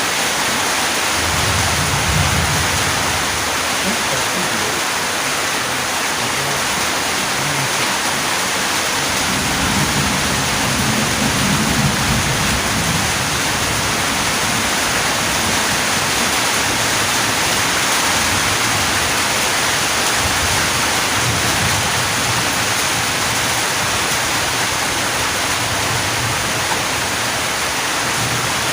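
Steady heavy rain falling, with low rumbles about a second in and again around ten seconds in.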